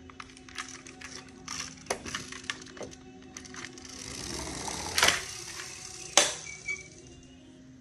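Diecast toy vehicles handled and set down on hard surfaces: scattered small clicks and clatter, then a rushing noise that swells from about four seconds in as a toy truck rolls across the tiled floor, with two sharp knocks about a second apart.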